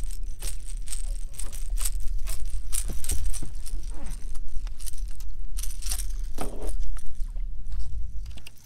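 A small largemouth bass being unhooked from a topwater lure on a boat deck: irregular clicks and knocks with a metallic jingle of the lure's hooks, over a steady low rumble.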